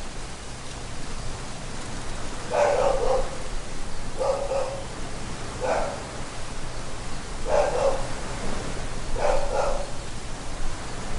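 A dog barking five times, single barks spaced a second or two apart, over a steady rush of beach surf and wind.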